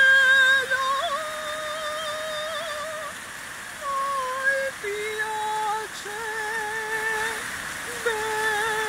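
A woman singing unaccompanied in an operatic style: a string of long held notes, the first with a wide vibrato, the pitch stepping lower after about four seconds. An even splashing of fountain water runs underneath.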